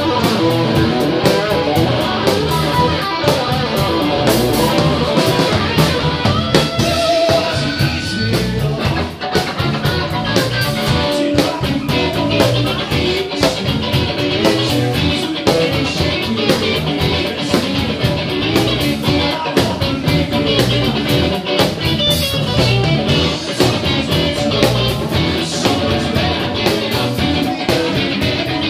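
Live rock band playing: electric guitar over a drum kit, with frequent drum and cymbal hits.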